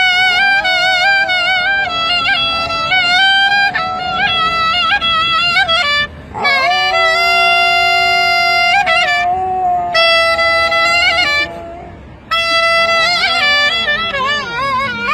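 A clarinet playing long held notes with a dog howling along, the howl wavering and gliding in pitch against the clarinet's steadier tones. The two stop briefly twice, about six and twelve seconds in.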